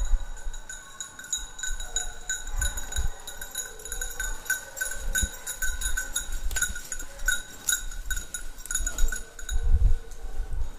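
A small metal bell ringing on and on, flaring about one and a half times a second in step with walking, over low thumps of footsteps in dry leaf litter.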